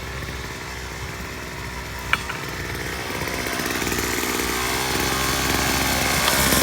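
Gas-powered jackhammer driving a steel grounding rod into hard soil through a cut-down chisel bit sleeved with a welded pipe. The engine and hammering run at moderate level, then grow steadily louder from about three seconds in as it works harder, with one sharp click about two seconds in.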